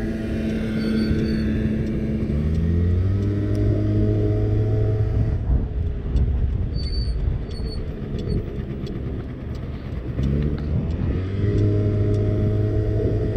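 50cc scooter engine pulling away, its pitch climbing and then holding steady at speed, easing off about five seconds in and picking up again near the end, over a low rumble of road and wind noise.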